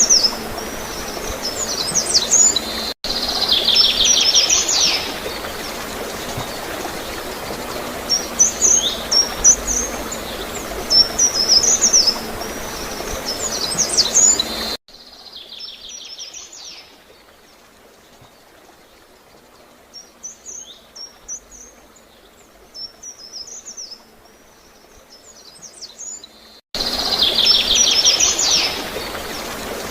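Small birds chirping in short, repeated high phrases over a steady gurgle of flowing water. About halfway through, everything drops abruptly much quieter for some twelve seconds, with the chirps still faint, then cuts back in at full level.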